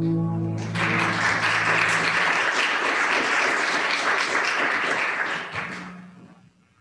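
Congregation applauding for about five seconds at the end of a sung solo, starting under the song's last held chord and then dying away.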